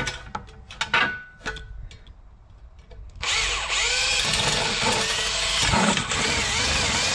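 A few light metal clicks and taps, then about three seconds in a power drill starts and runs steadily, its pitch wavering, as it drills out a rivet in the sheet-metal sign housing.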